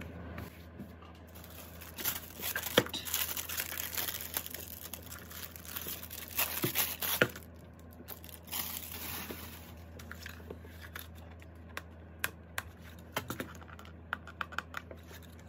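Plastic being handled: a frosted plastic binder and its wrapping rustle and crinkle in bursts through the first half. A few light taps and clicks follow near the end.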